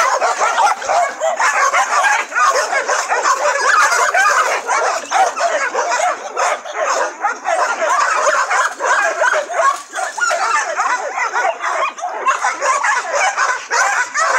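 Several dogs barking, yipping and whining all at once in a steady, unbroken din.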